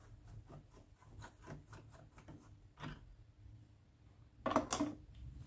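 Long screwdriver turning out a screw from the plastic speedometer cover of a Honda Scoopy-i scooter: a run of faint scraping clicks, then a louder clatter about four and a half seconds in.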